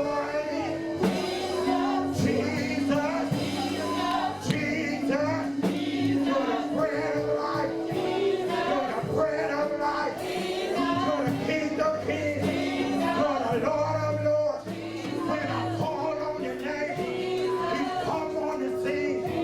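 Gospel worship music: voices singing together over held keyboard chords.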